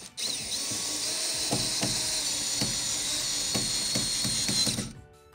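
Cordless drill driving a pan-head screw through an acrylic shower base flange into a wood stud. The motor spins up at the start, runs at a steady whine with uneven low knocks underneath, and stops abruptly near the end.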